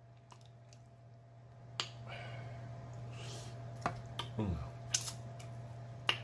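Roasted turkey wing meat being pulled apart by hand close to the microphone: soft tearing with a few sharp clicks, and a short hummed 'mm' a little after four seconds. A low steady hum runs underneath.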